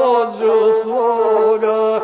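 Gusle, the bowed single-string folk fiddle, playing a held tone broken every second or so by short, quick melodic turns.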